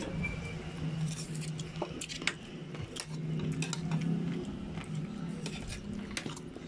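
Metal spoon clinking and scraping against a ceramic bowl while scooping saucy chicken feet, a scattered series of sharp clinks over a steady low hum.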